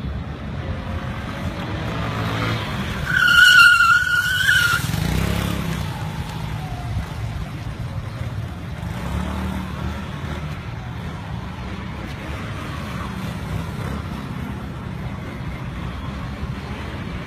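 Motorbike engines running with a steady low rumble, and one loud tyre screech about three seconds in that lasts a second and a half: a skid.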